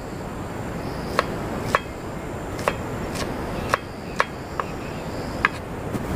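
Chef's knife slicing a red onion on a wooden cutting board: about eight sharp knocks of the blade striking the board, roughly one every half second, over a steady background hiss.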